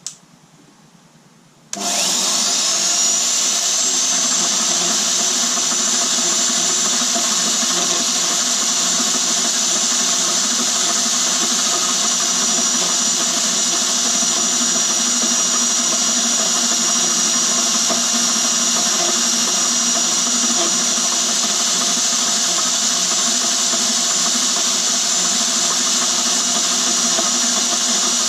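A click, then about two seconds in the Burley R2103 bandsaw starts up and runs steadily, its motor giving a loud, even hum with a high whine.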